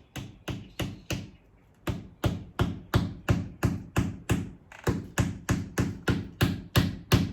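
Hammer driving a nail, possibly the angled fixing through a cavity closer: a few light taps, a short pause, then steady sharp blows about three a second.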